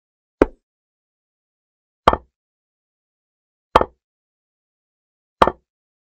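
Chess-board software's piece-move sound effect: a short, sharp click played four times, about 1.7 seconds apart, each marking a move in the game replay.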